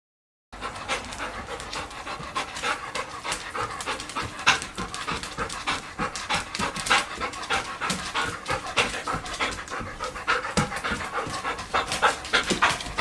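A dog panting steadily in short, quick breaths, starting about half a second in.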